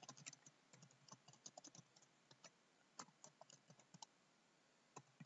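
Faint typing on a computer keyboard: a quick, uneven run of key clicks that thins out about four seconds in, with one more click near the end.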